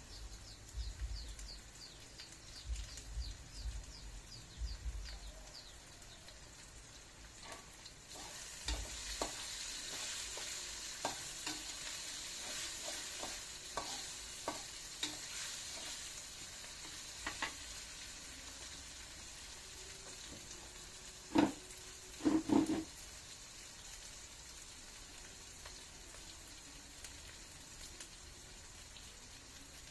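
Food sizzling as it fries in a pan while a utensil stirs it, with scattered clicks and scrapes. A few sharp knocks of the utensil against the pan come about two-thirds of the way through.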